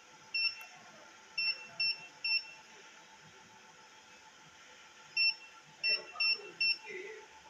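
Key-press confirmation beeps from a Maynuo M9716 DC electronic load's front-panel keypad as its current setting is entered. There are four short, high beeps in the first two and a half seconds, then four more from about five seconds in, over a faint steady hum.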